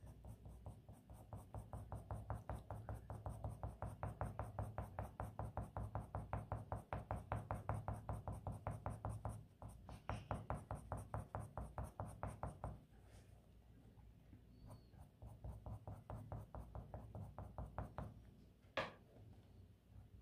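Black colour pencil shading on drawing paper: quick, even back-and-forth strokes, several a second, in a long run, then after a short pause a second, shorter run. A single sharp tap comes near the end.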